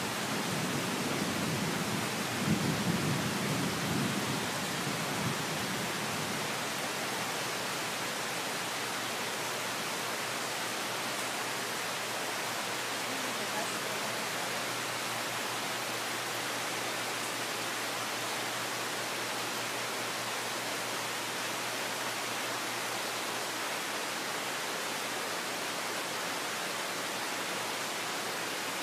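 Heavy tropical rain falling in a steady hiss, with a low roll of thunder in the first few seconds that fades away.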